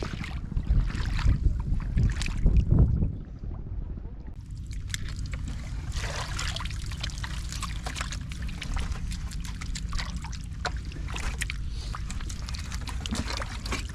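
Wind buffeting the microphone for about the first three seconds, then a steady patter of small water splashes and drips.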